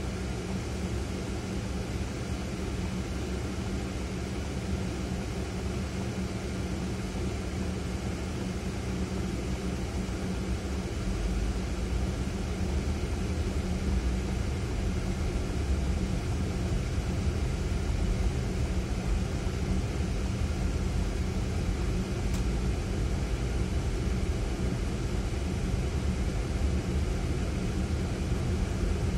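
Ford Fiesta in-cabin driving noise: a steady engine and road rumble with a faint hum, getting louder about eleven seconds in as the car picks up speed.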